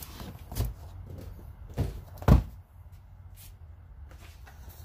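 Cardboard box holding a framing nailer being lifted and set down: three knocks against the workbench, the last and loudest a heavy thud a little over two seconds in.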